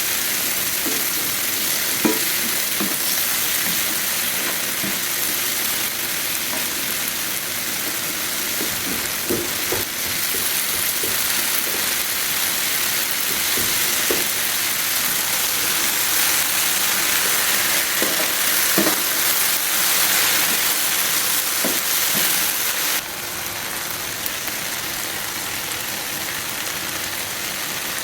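Okra frying in oil on a tawa, a steady loud sizzle with a few scattered knocks of stirring. About two-thirds of the way in the sizzle steps down a little, suddenly.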